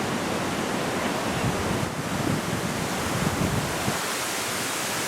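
Strong hurricane wind blowing: a steady rush with gusts buffeting the microphone for a couple of seconds midway.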